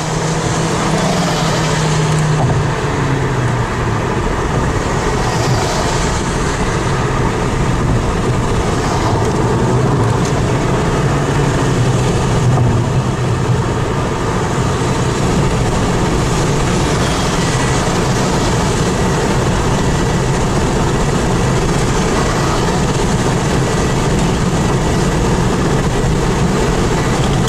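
Steady road and engine noise of a car driving along a highway, holding at an even level throughout.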